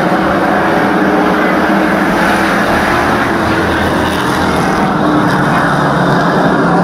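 A pack of street stock race cars with their engines running together, a loud, steady, unbroken sound of many engines.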